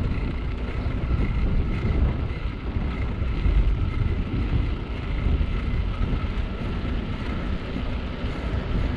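Riding a bicycle on asphalt with a GoPro action camera: wind rumbling steadily on the microphone over tyre noise from the road, with a faint steady high whine underneath.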